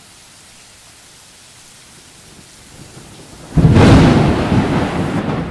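Steady rain, then a sudden loud thunderclap about three and a half seconds in that rumbles and slowly fades.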